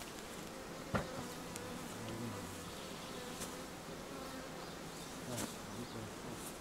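Honeybees buzzing steadily around an open hive while frames are being set in. There is a sharp knock about a second in and a softer one later.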